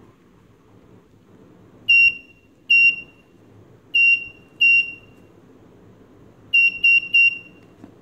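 Small piezo buzzer on a Raspberry Pi 2 alarm breadboard giving short, high single-pitch beeps: two pairs, then three quick beeps near the end. They sound as the home-security system's sensors are brought online.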